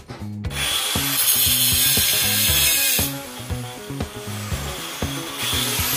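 Angle grinder spinning up about half a second in and grinding the steel seat frame, easing off and winding down around the middle, then revving up again near the end. Background music with a bass line plays underneath.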